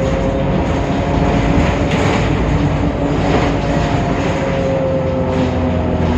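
Temsa Avenue LF city bus with its DAF PR 228 diesel engine and ZF Ecolife automatic gearbox running, a steady drone with a clear whining tone held over it.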